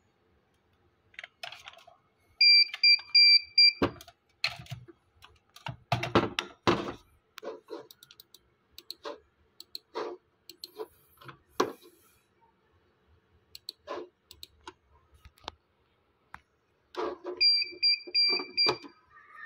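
Irregular computer mouse clicks and light taps. Two runs of four or five quick, high electronic beeps come, one a few seconds in and the other near the end.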